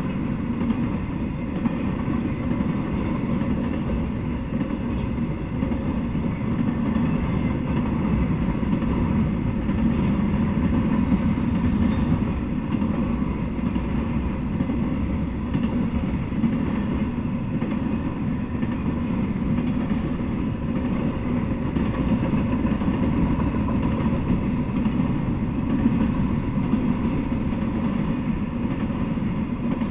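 Intermodal freight train carrying highway trailers on flatcars rolling steadily past, a continuous low rolling noise of wheels on the rails.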